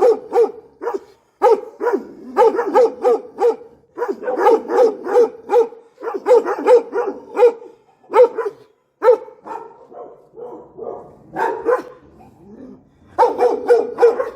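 Dogs barking in quick runs of several barks a second, with short pauses between the runs.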